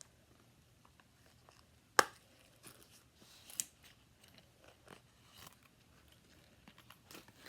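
Handling noise from a folding multi-tool: one sharp metallic-sounding click about two seconds in, then scattered lighter clicks and a brief rustle as it is turned over and folded.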